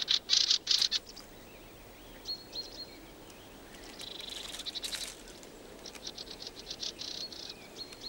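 Small woodland songbirds calling: a loud burst of high chattering at the start, a couple of short high notes a few seconds later, then a trill and a fast run of high ticking calls near the end.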